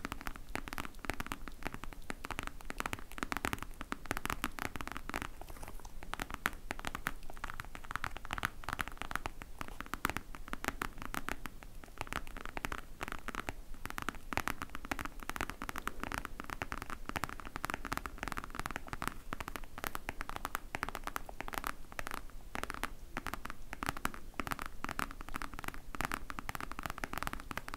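Fingernails tapping and scratching on a glossy crocodile-embossed case, a dense, unbroken run of quick clicks and scratches.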